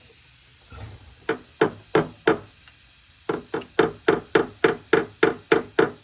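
Hammer tapping down a high spot on a steel car body panel: four sharp knocks, a short pause, then a quicker run of taps at about three to four a second, each ringing briefly in the sheet metal.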